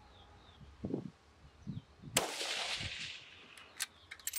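A single .223 rifle shot about two seconds in, the report dying away over about a second. A few faint knocks and ticks come before and after it.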